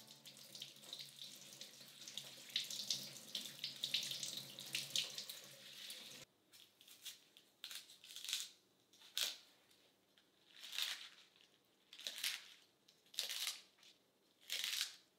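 Tap water running steadily into a kitchen sink, cut off suddenly about six seconds in. It is followed by a kitchen knife cutting the greens and stems off a white turnip on a cutting board: about eight separate cuts, one every second or so.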